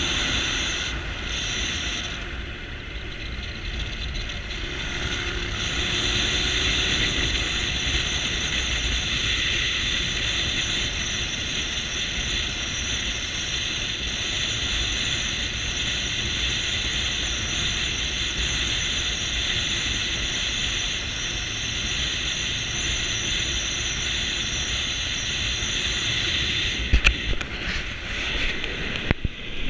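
Motorcycle riding at road speed: a steady rush of wind on the camera's microphone, with engine and tyre noise underneath. There are a few brief knocks near the end.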